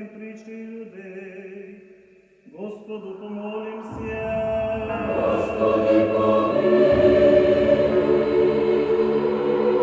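Background music of choral chant over a held drone note, dipping briefly, then swelling louder with deeper voices joining about four seconds in.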